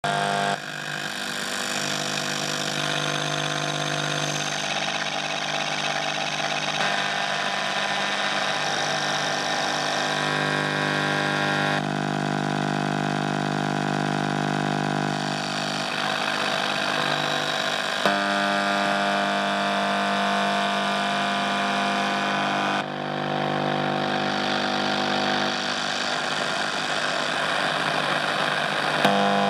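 Radio interference noise: a steady buzzing hum made of many stacked tones over hiss, switching abruptly to a different buzz every few seconds as the radio is tuned.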